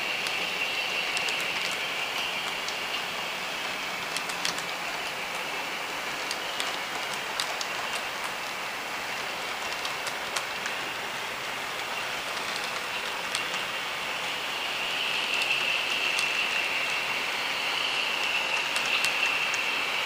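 Model train running on the track: a steady whine from the diesel locomotive's motor and gearing, with scattered light clicks from the wheels over the rail, growing a little louder in the last few seconds.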